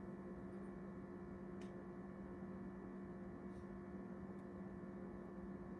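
Steady low electrical hum with a faint tick about one and a half seconds in.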